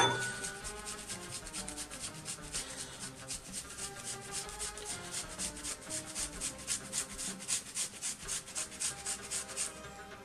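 Strawberry being grated on a flat metal hand grater: quick rasping strokes, several a second, that stop near the end.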